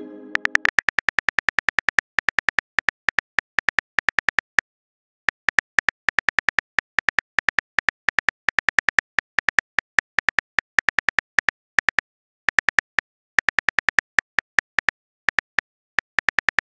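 Phone keyboard typing clicks: rapid short taps in runs, broken by brief pauses.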